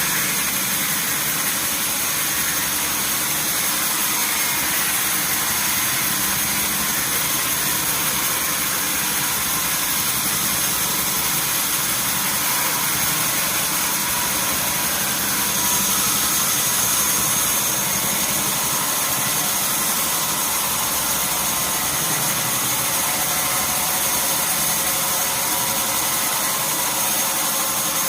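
Sawmill machinery running steadily: a constant mechanical noise with a thin high whine in it.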